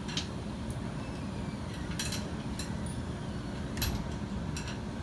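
A few short, sharp metal clinks, roughly two seconds apart, from tools and metal parts being handled, over a steady low shop rumble.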